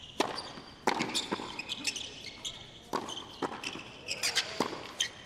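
Tennis doubles point on a hard court: a serve, then a rally of sharp racquet-on-ball pops roughly once a second with ball bounces between, and short high squeaks of shoes on the court.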